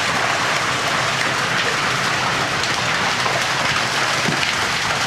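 Water rushing out of a trout stocking truck's tank and down a metal release chute, with live trout washing along in it: a steady, loud splashing rush.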